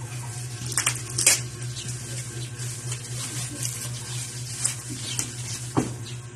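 Black plastic bags crinkling and rustling as they are handled and pulled open, with sharp crackles, the loudest about a second in and a few more near the end.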